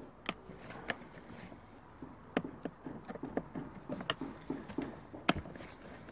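Screwdriver working on the screws of a plastic motorcycle airbox: an irregular run of small clicks and scrapes, with a few sharper knocks, the loudest about five seconds in.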